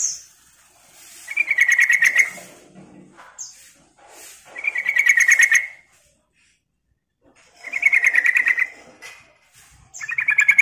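Yellow-vented bulbul (trucukan) singing. It gives a fast trilled phrase about a second long four times, about every three seconds, with a short high chirp between phrases.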